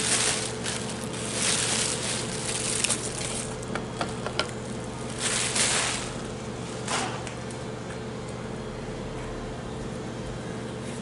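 Plastic packaging rustling and crinkling in bursts, with a few light clicks, while a new transmission control module is handled. It stops about seven seconds in, leaving a steady low hum.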